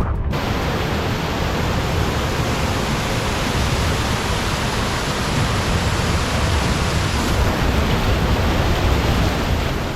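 Loud, steady rush of falling water from a waterfall close to the microphone, starting abruptly just after a cut at the very beginning.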